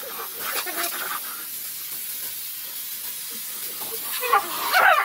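Steady hiss of compressed air blowing from a workshop air hose while a dog bites at the blast. Near the end there is a short, rising yelp.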